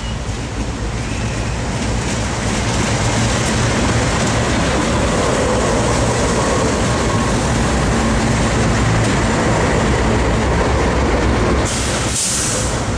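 Several diesel freight locomotives passing close by, their engines a low steady drone that grows louder over the first few seconds as they come alongside. A short burst of hiss about twelve seconds in.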